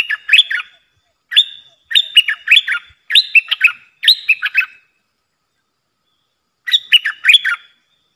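A bulbul (merbah lekir, Thai nok dok taeng) calling: short phrases of quick notes that sweep up and down in pitch, several in quick succession, then a pause of about two seconds and another phrase near the end.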